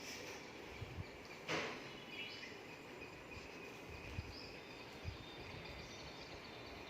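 Faint background ambience with a few faint, short bird chirps, a brief rustle about one and a half seconds in, and a few soft low thumps.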